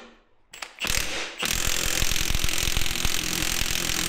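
Milwaukee 2864-20 M18 Fuel 3/4-inch high-torque cordless impact wrench spinning up briefly just under a second in, then hammering hard and rapidly on a cylinder head bolt from about a second and a half on, working to break it loose.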